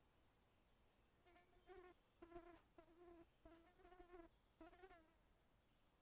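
A flying insect buzzing quietly in a string of short bursts, starting about a second in and stopping near the end.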